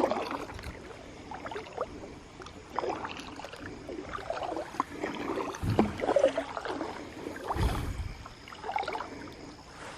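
Kayak paddling: irregular small splashes and drips of water off the paddle, with light knocks on the hull of an Oru Lake foldable kayak. Two brief low thumps come about six and eight seconds in.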